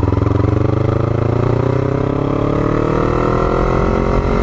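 Yamaha MT-03's parallel-twin engine pulling steadily in gear, its pitch rising slowly as the bike gathers speed.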